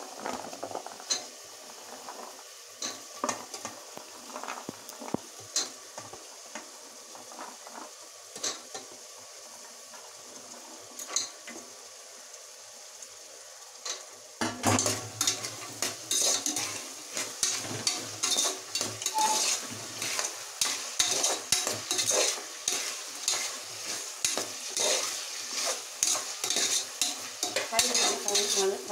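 Chopped vegetables sizzling in oil in a pressure cooker while a metal slotted spoon stirs them, scraping and clinking against the pot. The scrapes are sparse at first, then about halfway through the stirring turns brisk and continuous over a louder sizzle.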